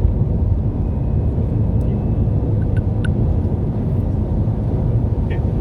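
Car driving at a steady pace: a constant low rumble of road and engine noise, with a few faint ticks about three seconds in and near the end.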